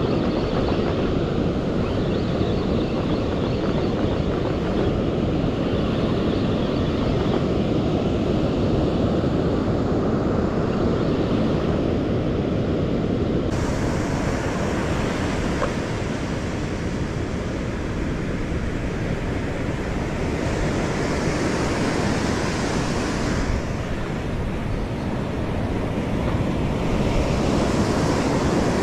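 Surf breaking on a sandy beach, a steady rushing wash, with wind buffeting the microphone. The sound changes abruptly about halfway through.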